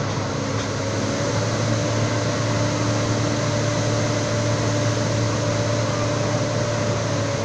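Police water cannon truck spraying at full pressure, 16 bar. Its engine and pump drone steadily under load beneath the rushing hiss of the water jet, with a faint steady whine over it.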